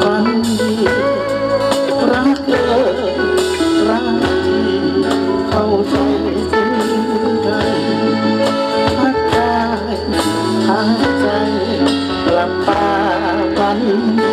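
Live band music: a Thai song played on guitar and other instruments, running continuously, with singing possibly blended in.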